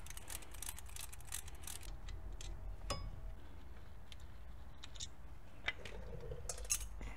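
Scattered light metallic clicks and clinks of a hand wrench and socket working on a new brake caliper while its two bracket bolts are removed, with a few sharper clinks in the second half.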